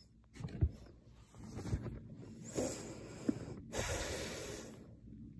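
Breathy exhales and rustling right at a phone's microphone, with a couple of low bumps near the start and a stronger hissing rush in the second half.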